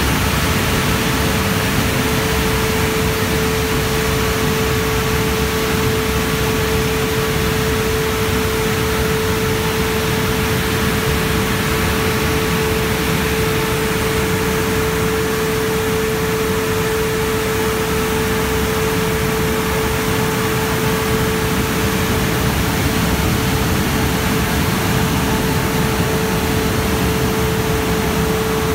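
Christ Genius Vitesse rollover car wash running its drying blowers: a loud, steady rush of air with one constant hum in it.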